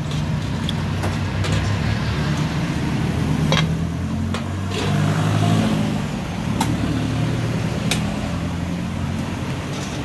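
Steady low hum of a running engine, as of a vehicle idling close by. A few sharp clicks, a metal ladle knocking on steel bowls and pots, are heard over it.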